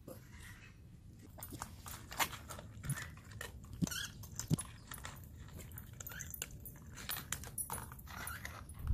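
Dogs crunching dry kibble from a shared plastic bowl, with irregular crunches and clicks starting about a second and a half in.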